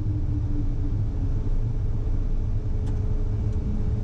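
Steady low rumble of cockpit noise in a Cessna Citation M2 taxiing after landing, its twin turbofans at idle, with a faint steady hum.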